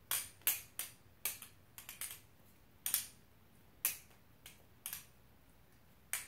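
EOS Serpent balisong (butterfly knife) being flipped, its titanium handles and blade clacking together in a string of sharp, irregular clicks: the low-end titanium thud that marks this knife as a good-sounding balisong.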